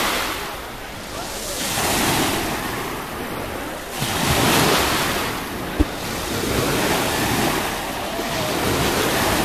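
Sea waves breaking on the shore, the surf swelling and falling back about every two seconds. A single brief knock about six seconds in.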